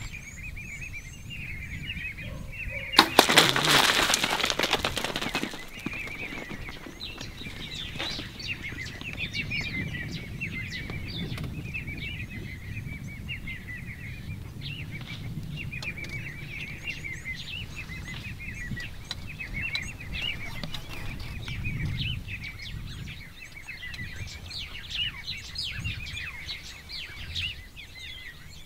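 Small birds chirping continually, many quick repeated chirps, over a low rumble. A loud burst of noise starts suddenly about three seconds in and lasts around two seconds.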